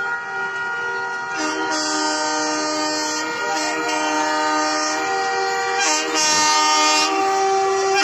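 Air horns of Indian Railways WAP7 and WAP4 electric locomotives sounding together in long, loud, overlapping blasts. The blend of tones shifts a few times as one horn's note starts or stops.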